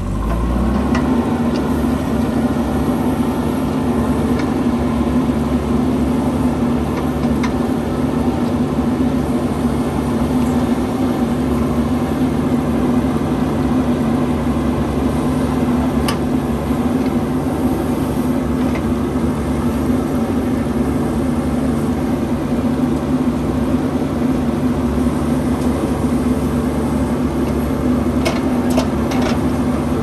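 Diesel engine of a JCB 3DX backhoe loader running steadily at an even speed, without revving.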